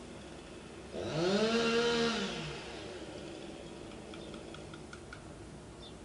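Chainsaw engine revving: about a second in its pitch rises quickly, holds high for about a second, then falls away back to a low, quiet running level.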